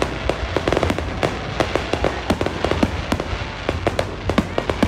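Aerial fireworks bursting in a rapid, irregular string of bangs and crackling pops over a continuous low rumble.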